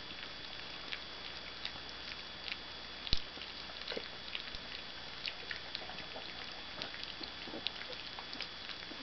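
Puppies crunching and chewing dry kibble from a plastic tray: scattered small crunches and clicks, with one louder knock about three seconds in.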